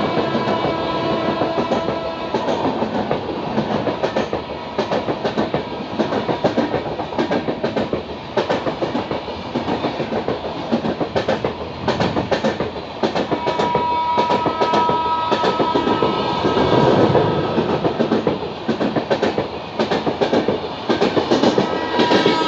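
Humsafar Express train running on the rails, its wheels clicking over rail joints in repeated rapid clusters: the 'tadak tadak' clickety-clack. A horn tone is held briefly a little past the middle.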